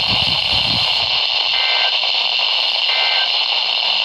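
Heavy radio static hiss. A broadcast voice trails off in the first second, then three short, buzzy data bursts follow about 1.3 s apart: the EAS/SAME end-of-message code that closes the emergency alert.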